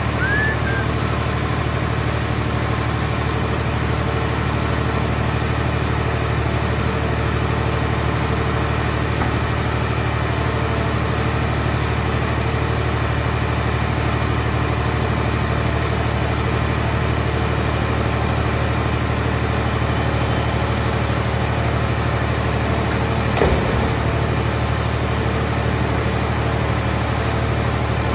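A heavy engine idling steadily, with a single knock about 23 seconds in.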